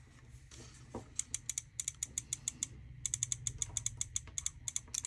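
Rapid, irregular light clicking that starts about a second in, from the hand-held instrument cluster circuit board and its clipped-on wires being handled, over a low steady hum.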